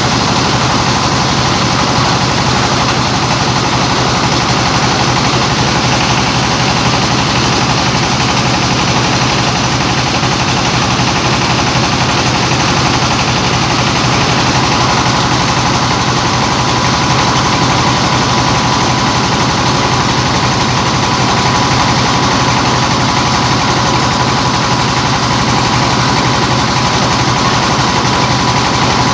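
Rice-milling machine driven by a Dongfeng 24 hp diesel engine, running steadily under load with the mill whirring, a fast even engine beat and a thin steady whine.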